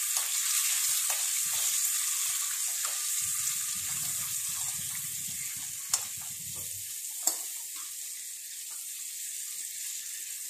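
Boiled eggs sizzling steadily as they fry in ghee in a pan, with two sharp clicks as the eggs are turned over by hand against the pan.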